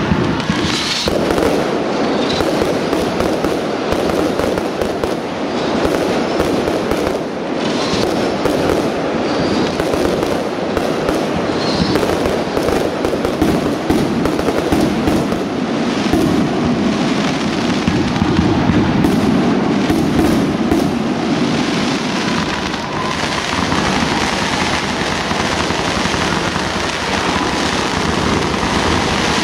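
Professional aerial firework display: a continuous barrage of shells launching and bursting, with many sharp pops and crackles overlapping throughout.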